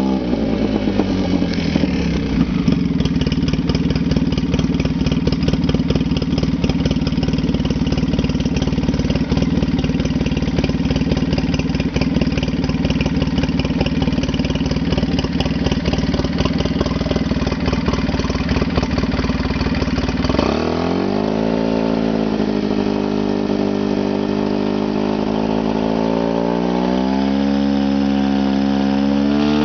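Polaris Sportsman 800 ATV's twin-cylinder engine running while the quad is walked through deep floodwater. It settles to a steady low run with a rapid rough pulsing. About twenty seconds in the revs climb sharply and waver under the throttle, then rise again near the end.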